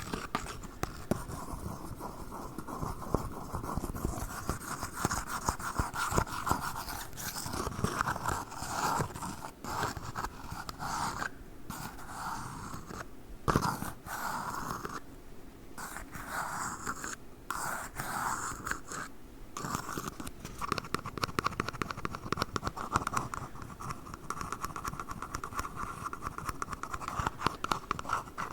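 Fast, continuous scratching and tapping on tiny red cups close to the microphone, with a few brief pauses midway.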